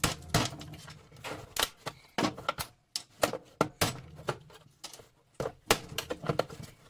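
Hammer knocking on the housing of a scrap appliance being broken apart: a quick, irregular series of sharp knocks.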